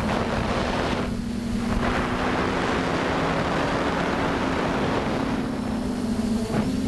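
TBS Discovery quadcopter's electric motors and propellers whirring at a steady pitch in flight, with rushes of wind noise over the onboard microphone, strongest in the first second and again through the middle.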